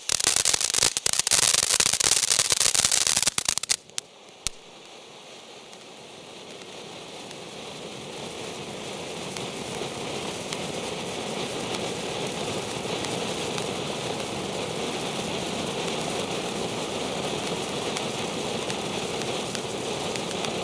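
Ground fountain fireworks: a dense crackling spray that cuts off abruptly a little under four seconds in, one more pop, then a steady hissing spray that builds up gradually and holds.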